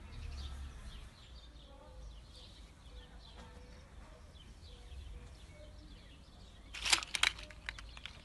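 Quiet outdoor background with faint bird calls. About seven seconds in comes a short burst of sharp crackling clicks.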